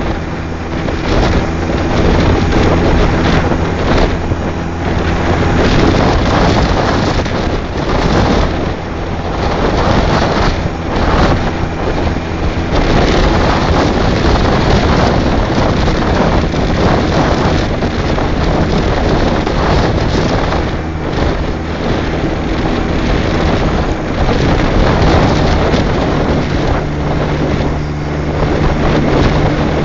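Yamaha XJ750 inline-four engine running at road speed, with heavy wind noise on the microphone. The engine note shifts a few times as the rider changes speed.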